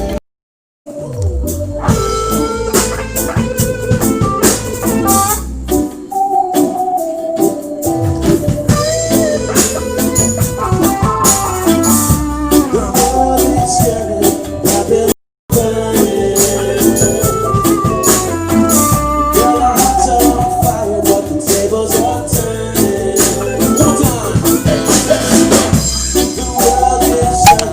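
Live acoustic band performance of a song with lead vocals. The sound cuts out completely twice for a moment, just after the start and about halfway through.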